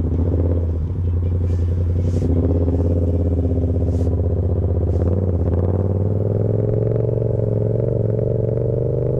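Yamaha MT-07 parallel-twin motorcycle engine running at low revs, with a few light clicks in the first half. The revs rise steadily over the last few seconds as the bike accelerates.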